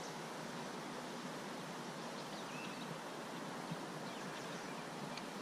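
Steady rushing of a flowing creek, an even wash of water noise.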